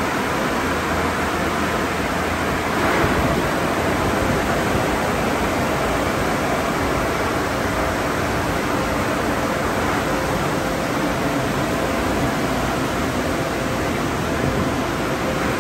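Car wash tunnel dryer blowers running: a steady rush of air with a faint hum, swelling slightly about three seconds in.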